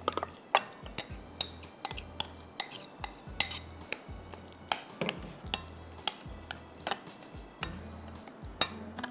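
Metal spoon clinking and scraping against glass bowls while raw chicken pieces are mixed with flour and a marinade for deep frying: sharp irregular clinks, about two a second.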